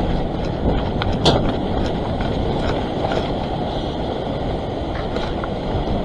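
Surf breaking and washing across a coastal rock ledge as a steady rush, with a sharp tap about a second in.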